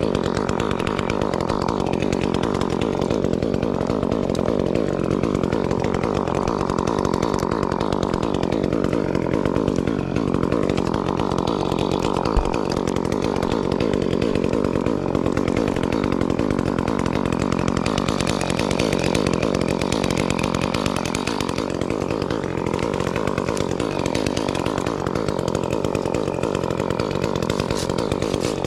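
Chainsaw running continuously at high revs, its pitch sagging briefly a couple of times as under load, with a single short knock about twelve seconds in.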